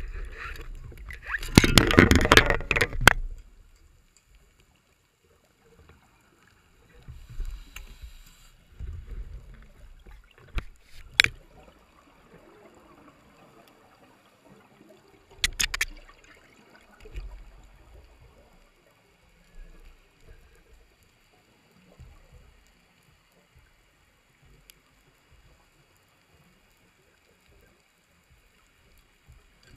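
Underwater bubbling from a scuba diver's regulator exhaust: a loud rush of exhaled bubbles about two seconds in, then quieter scattered bubbling with a few sharp clicks, fading toward the end.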